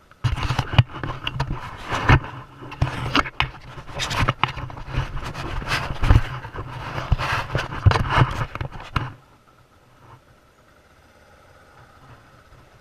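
A vehicle's engine humming steadily under loud, irregular knocks and rattles, as of a vehicle jolting over a rough road. It starts abruptly and cuts off about nine seconds in.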